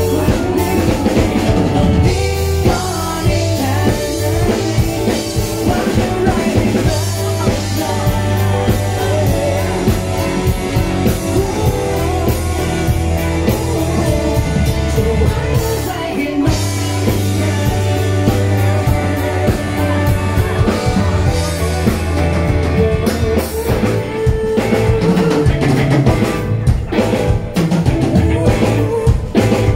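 A male singer singing live into a handheld microphone through a PA, over a pop-rock backing of drums and guitar.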